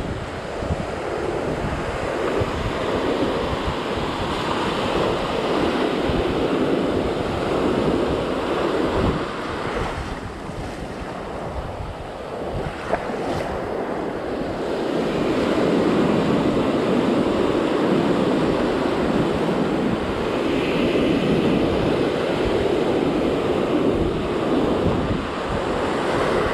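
Ocean surf washing up the sand and around the shins, swelling in two long surges with a lull between, with wind buffeting the microphone.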